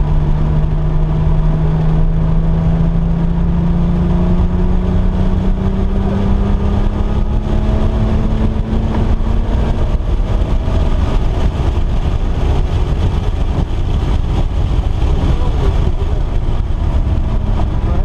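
Car engine pulling under load on a racetrack, its pitch climbing slowly for about ten seconds, then changing, over a heavy low rumble of road and wind noise.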